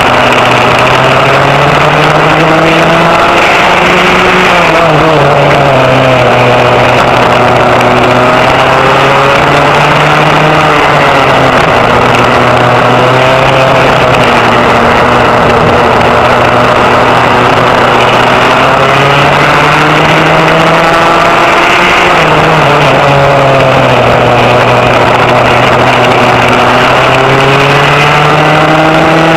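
Vintage rear-engine racing kart's engine heard loud and close on board at race pace, its revs climbing along the straights and falling away into the corners about four times over.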